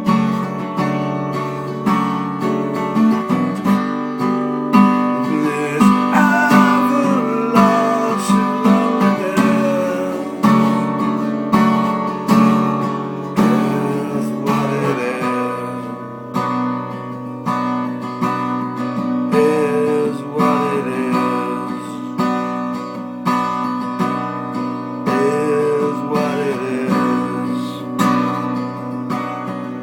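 Acoustic guitar strummed in a steady rhythm in an instrumental passage of a song, with a melody line wavering above the chords.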